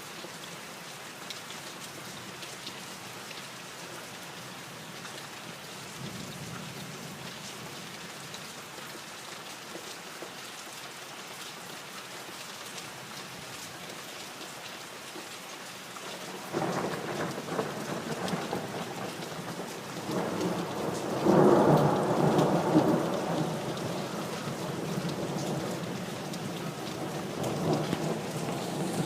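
Steady rain falling, then a long roll of thunder starting a little past halfway, loudest a few seconds later and rumbling on with another swell near the end.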